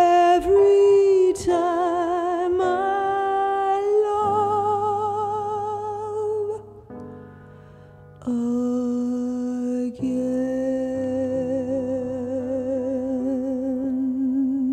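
Female singer holding long notes with wide vibrato over a soft backing track, the closing phrases of a ballad. A short breath-pause comes about seven seconds in, then one long, lower sustained note.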